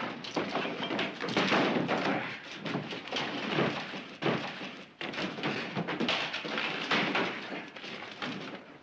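Irregular thuds, knocks and scrapes of rubble being shifted by hand.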